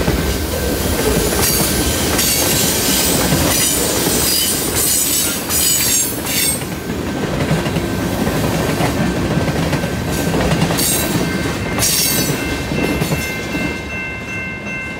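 Long freight train's cars rolling past on a curve: a steady rumble of steel wheels on rail, with wheel clicking and repeated bursts of high wheel-flange screeching.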